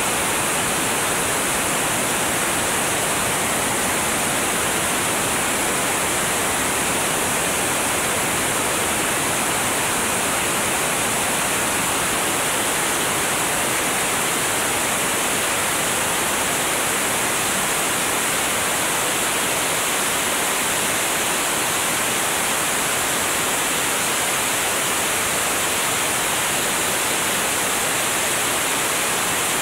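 Steady rush of wind past a camera mounted under a light aircraft's wing in flight. It is an even, unbroken hiss, strongest in the high register, with no distinct engine note standing out.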